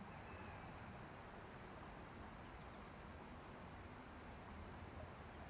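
Faint outdoor quiet with an insect chirping steadily, one short high chirp about every half second.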